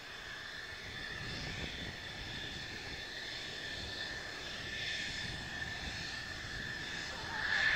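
Mitsubishi F-2 fighter's single F110 turbofan engine running at low taxi power: a steady high whine with a second, higher tone over a low rumble, growing louder near the end as the jet draws near and turns.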